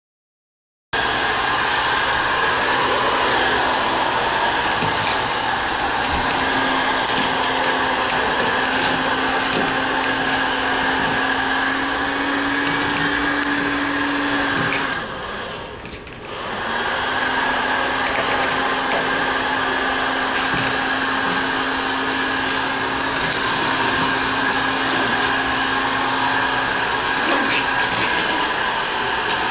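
Dog grooming dryer blowing steadily with a constant hum as a toy poodle's coat is fluff-dried. It starts about a second in, drops away briefly about halfway through, then comes back.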